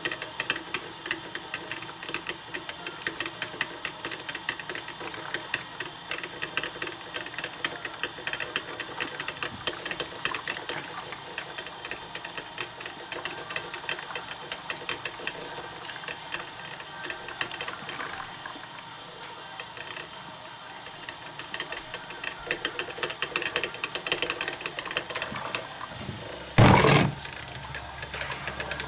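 Black & Decker thermal-carafe drip coffee maker brewing, its heater sputtering and popping in a fast, irregular crackle. A loud short burst stands out about 27 seconds in.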